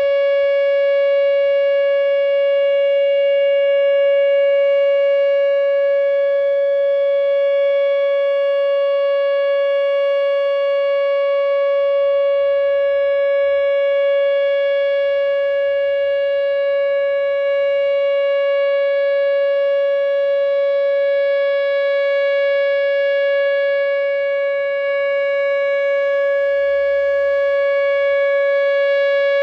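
Whelen WPS 2908 electronic outdoor warning siren sounding a loud, steady tone for a tornado drill test.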